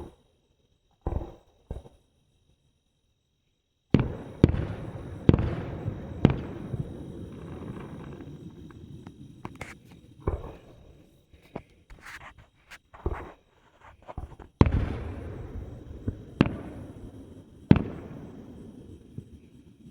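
Fireworks bursting. There are two sharp single bangs first. From about four seconds in comes a quick run of loud booms, each trailing off in crackle and rumble. Scattered pops follow, then a second run of booms near the end.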